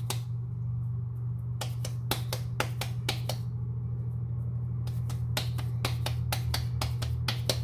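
Hands patting a ball of soft bread dough flat between the palms, pupusa-style: quick slapping pats, about five a second, in two runs with a short pause between, over a steady low hum.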